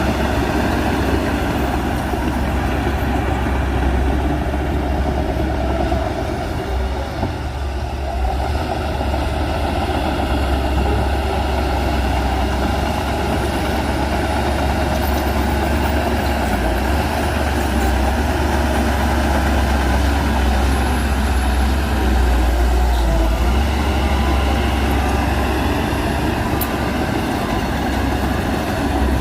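Heavy earthmoving machine's diesel engine running steadily under work, a deep continuous drone that dips briefly about seven seconds in.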